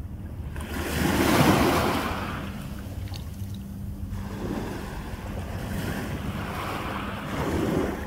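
Small waves washing in over sand at the water's edge, in two swells: a strong one about a second in and another building near the end. Wind buffets the microphone.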